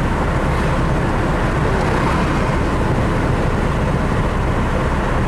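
Steady engine and tyre noise of a vehicle travelling along a road, heard from on board.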